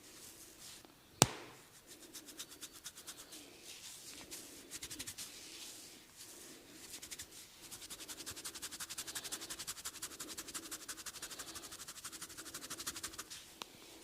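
Fast, even scratching and rubbing strokes on hair and scalp during a head massage, about ten strokes a second and stronger in the second half. One sharp snap comes about a second in.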